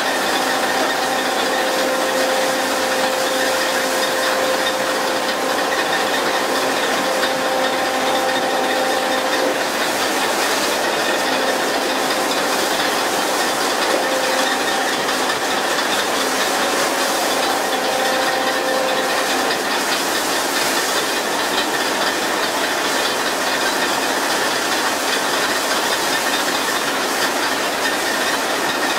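Steady hissing rush of water spray from a pole-and-line tuna boat's sprinkler jets hitting the sea beside the hull, with a steady mechanical hum underneath.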